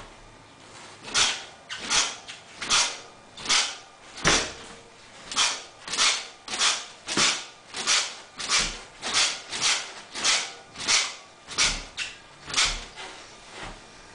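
RockShox Recon Silver TK Air suspension fork squeaking as it is pumped up and down, about twenty short squeaks of roughly one or two a second, starting about a second in and stopping near the end. The squeak comes from a fork only about 150 km old.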